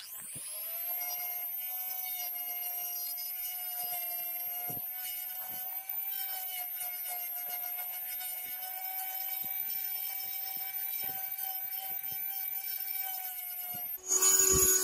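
Cordless drill with a sanding drum spinning up at the start, then running at a steady whine while sanding the wooden handle of a small cleaver, with faint scraping clicks where the drum touches. Near the end a louder sound at a lower steady pitch cuts in.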